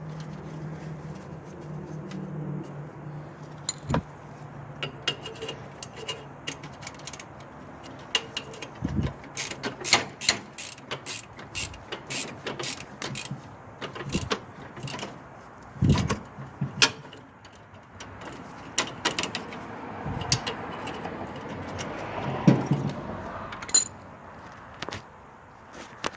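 Hand tools and metal parts of a snow blower clicking and clanking in irregular knocks, with a low steady hum for the first few seconds.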